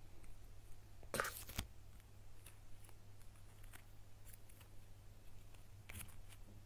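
A small Kinder Joy toy wrapper crinkling and tearing as it is opened by hand, loudest in one brief rustle ending in a sharp click about a second in, with another short rustle near the end. Faint clicks of small plastic toy parts being handled in between.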